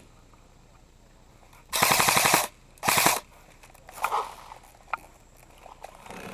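Airsoft rifle firing two short full-auto bursts, a fast, even rattle of shots about two seconds in and again a moment later. A fainter clatter and a single click follow.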